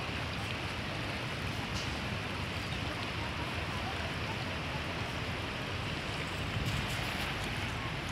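Steady rush of fast-flowing floodwater.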